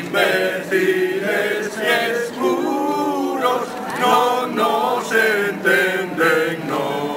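A group of people singing together without instruments, several voices holding and changing notes in a rhythmic chant.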